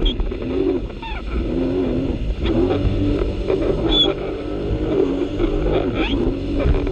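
Jet ski engine running at speed, its pitch repeatedly rising and falling.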